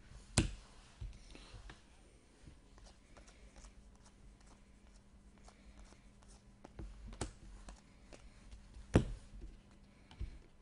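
Trading cards being handled: soft sliding and flicking as a stack is leafed through and a card is worked in a clear plastic holder, with a handful of sharp taps as cards are set down on the table, the loudest about nine seconds in.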